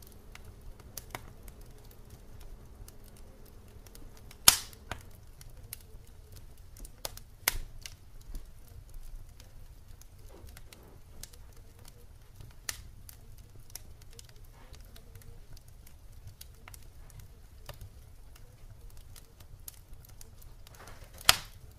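Scattered sharp clicks and pops over a faint low rumble, with two louder pops, one about four seconds in and one near the end.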